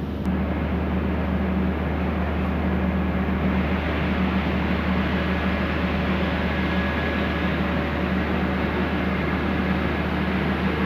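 Diesel locomotive engine running steadily with a low hum; a broad rushing noise swells from about four seconds in.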